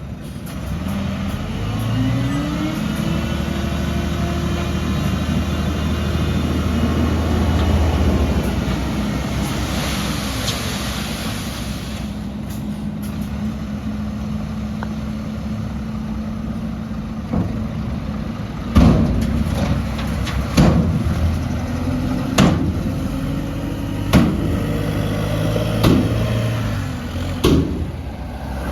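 Heavy diesel engine of earthmoving machinery running and revving up. A hiss comes partway through, and in the later half a run of loud sharp knocks about every two seconds.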